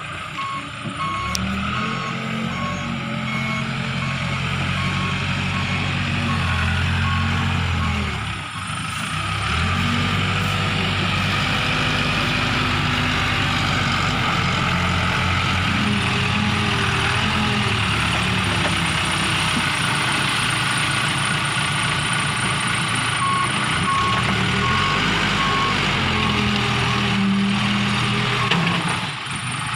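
Case backhoe's diesel engine working, its pitch rising and falling as the machine moves and lifts. A reversing alarm beeps steadily for the first several seconds and again near the end.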